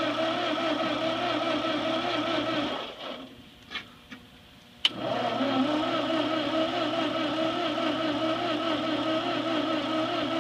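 Ford 8N tractor engine cranking on its starter motor without firing, a steady whining churn. It stops about three seconds in, a sharp click comes near five seconds, and the cranking starts again. The engine never catches because there is no spark, most likely trouble with the points.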